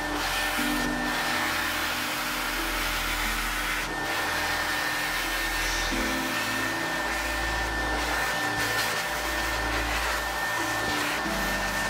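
Carpet extractor running as its wand sucks water out of the car's floor carpet: a steady rushing suction with a thin high whine from the vacuum motor.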